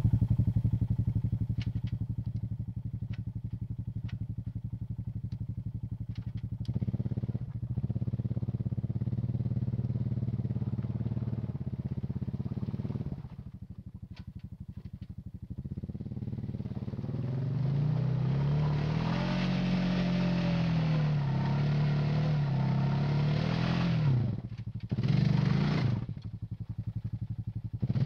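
Honda ATV engine running at low throttle, then revved up and down for several seconds as the quad churns through a deep mud rut. The engine drops off, gives a short second burst of throttle and settles back. There are a few light clicks in the first few seconds.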